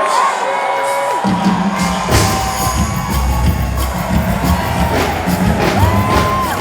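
Loud live concert music over a cheering crowd; a heavy bass beat comes in about a second in.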